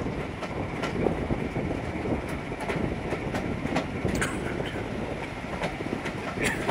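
Railway coaches running along the track, heard from an open coach window: a steady rumble of the wheels with irregular clicks over the rail joints and a few sharper clicks.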